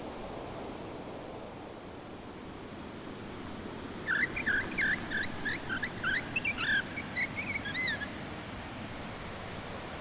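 A bird singing a quick run of warbling chirps for about four seconds, starting about four seconds in, over a steady low hiss of outdoor ambience.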